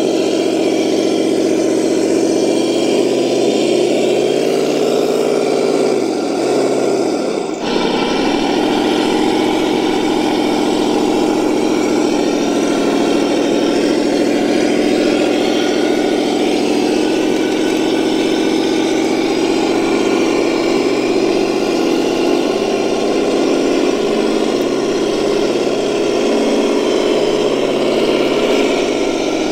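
Engine sound of an RC scale truck running steadily, a humming engine note that dips in pitch and changes abruptly about seven seconds in, then settles again.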